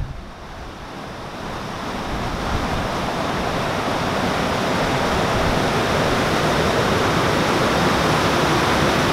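Water rushing into a canal lock chamber through the lock paddles, a steady gushing that swells over the first few seconds and then holds level.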